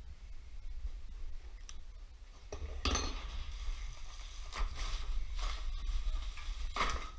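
Hammer striking the steel mounting bolt of a car's rear shock absorber to drive it out, about five sharp metallic clanks with a brief ring, the loudest about three seconds in.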